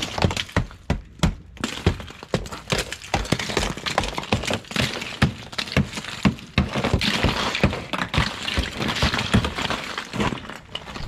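Rubber mallet striking a thick coating of freezing-rain ice on a truck's windows and body: repeated thuds, several a second, as the ice cracks and shatters and pieces break away.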